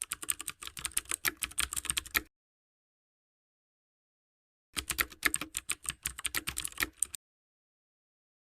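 Rapid computer-keyboard typing clicks in two runs of about two and a half seconds each, with dead silence between and after them, typical of a typing sound effect laid under an opening title.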